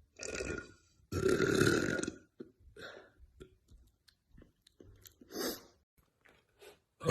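A woman burping: a short burp at the start, then a longer, louder deep burp about a second in, followed by small mouth clicks and smacks and one more brief burp near the end.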